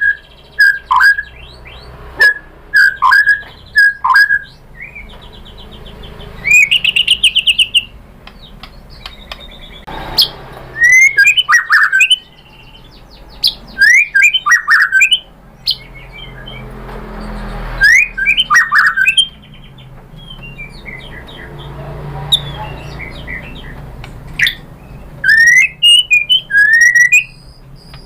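White-rumped shama singing loudly in separate phrases of clear sliding whistles, with a fast rattling trill a few seconds in and short pauses between phrases.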